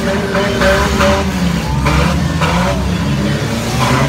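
Several compact cars' engines revving hard on a dirt arena, with tyres spinning and a few sharp bangs of bodywork as the cars ram each other.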